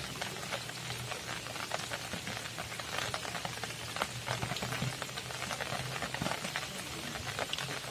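Rain falling, a dense irregular patter of drops, with a low hum underneath.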